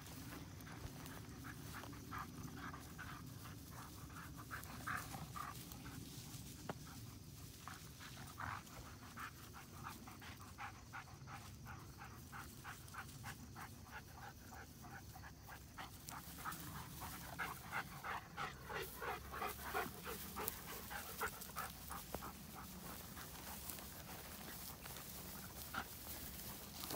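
Long-coat German Shepherd panting quickly and rhythmically, heaviest in the second half.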